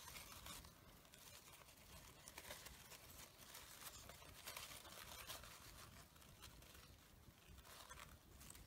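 Near silence with faint, scattered rustles and ticks as hands squeeze and shape the petals of a bunch of fabric roses.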